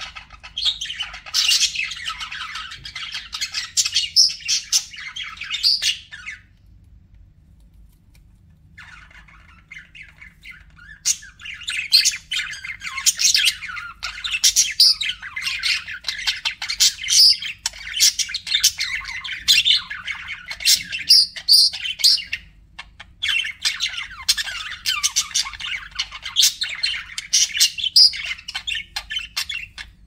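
Budgerigars chattering, with fast, overlapping chirps and warbles. The chatter stops for about two seconds some six seconds in, then starts up again and runs on densely.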